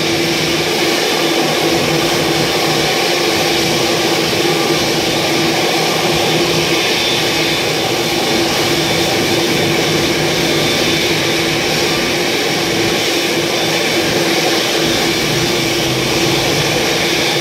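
Steady jet turbine noise from a parked Boeing 787-8: a constant whine and rush with an even hum, neither rising nor falling.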